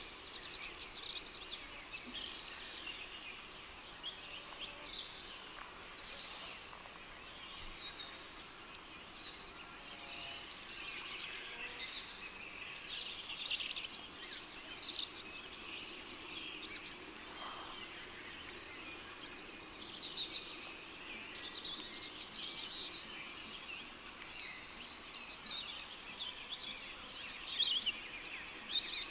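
Rainforest ambience of a cricket chirping steadily at a high pitch, about three chirps a second, with two short breaks, over scattered bird calls.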